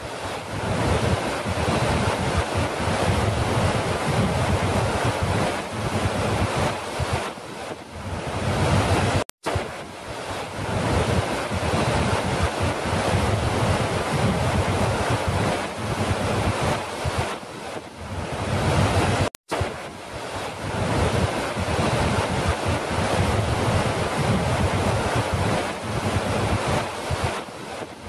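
Large, powerful waterfall: a heavy torrent pouring over a rock lip, a loud, steady rush of water with a deep fluttering rumble from wind buffeting the microphone. The sound cuts out for an instant twice, about nine and nineteen seconds in.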